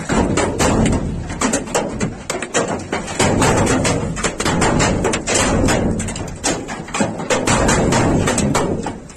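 Large hailstones pelting hard surfaces: a dense, irregular clatter of sharp knocks, several a second, over a steady rush of falling ice.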